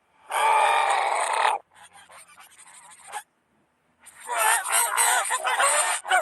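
Reversed, effect-processed burps, pitch-shifted and distorted. One long loud burp starts about half a second in and lasts about a second, followed by quieter crackling. After a brief silence a longer stretch of loud, warbling processed burp and voice sound begins about four seconds in.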